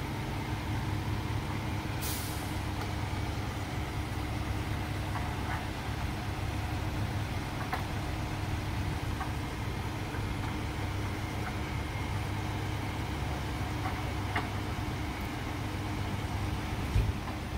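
Fire trucks' diesel engines idling with a steady low rumble, with a short hiss of released air about two seconds in and a brief thump near the end.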